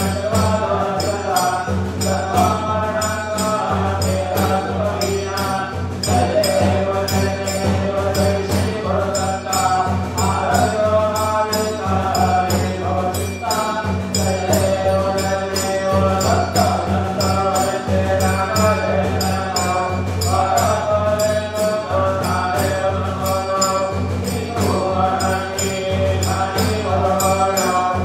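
Devotional Ganesha aarti sung in a repeating chant-like melody, with steady rhythmic percussion keeping time.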